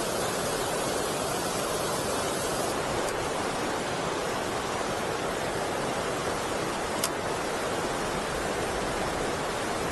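Water pouring over a river weir, a steady rushing, with a single sharp click about seven seconds in.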